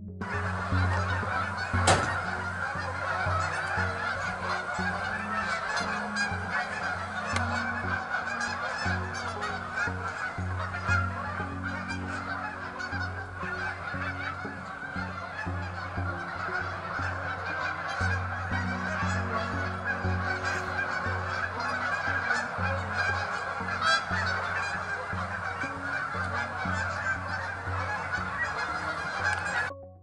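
A large flock of Canada geese honking continuously, many birds calling over one another at once.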